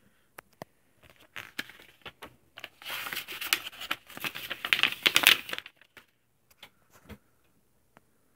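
Glossy pages of a comic book being handled and turned: scattered taps and clicks, then a dense crinkly paper rustle from about three to five and a half seconds in, then a few more taps.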